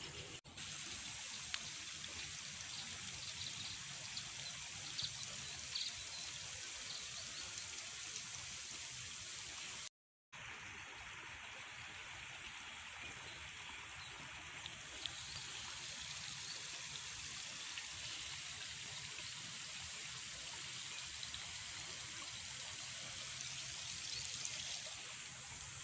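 Quiet, steady trickle of water running through rice-paddy irrigation channels. The sound cuts out completely for a moment about ten seconds in.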